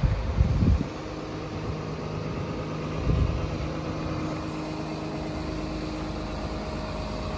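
Komatsu PC210LC-11 crawler excavator's diesel engine idling steadily, with no unwanted noises. Low bumps come near the start and again about three seconds in.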